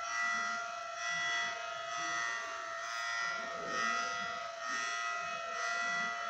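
Federal Signal Thunderbolt 1003 rotating outdoor warning siren sounding its Hi-Lo test signal. It is a steady multi-note siren tone that swells and fades about once a second.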